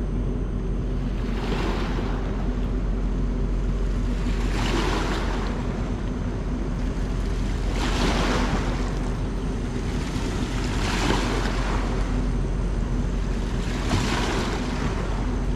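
Small waves washing onto a rocky riverbank, each swell of splashing peaking about every three seconds, over a steady low drone.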